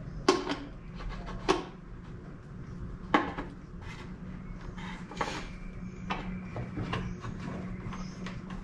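A few sharp clicks and knocks of hard plastic and metal parts as hose lines and fittings are handled and pushed on in a car's engine bay, over a steady low hum.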